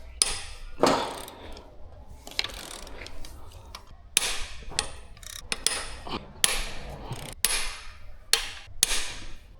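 Cylinder head bolts on an Audi EA839 V6 being cracked loose with a ratchet or breaker bar: a series of sharp cracks and clicks, one every second or so, with metal scraping between them.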